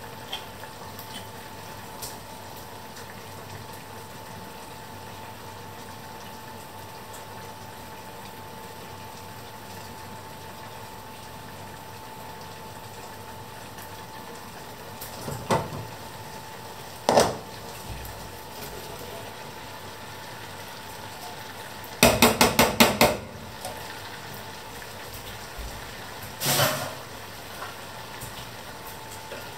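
Metal cookware clattering against a steady background hum: a few single knocks, and in the middle a quick run of about six knocks, as a tin can is emptied into a steel pot and the pot's glass lid is taken off and set down on the hob.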